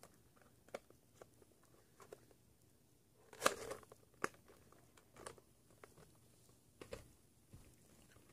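Someone chewing a mouthful of Hot Tamales chewy cinnamon candies: faint, irregular wet mouth clicks and smacks. A louder cluster of noises comes about three and a half seconds in, followed by a sharp click.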